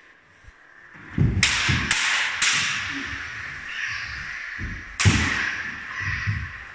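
Lightsaber blades clashing in sparring: three sharp strikes in quick succession about a second in and another near five seconds, each ringing out briefly, with low thuds of footwork on the gym floor.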